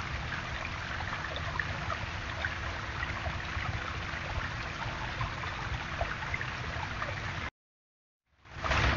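Steady splashing and trickling of a small backyard rock waterfall, under a faint steady hum. The sound cuts off suddenly about seven and a half seconds in and comes back under a second later.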